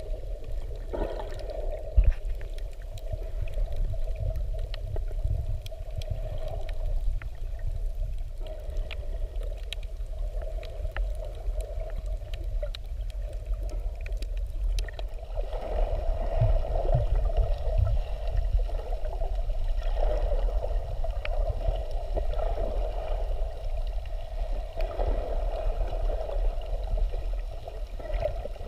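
Muffled underwater sound heard through a camera in its waterproof housing: a deep rumble of moving water with a steady hum and scattered faint clicks, a little louder about halfway through.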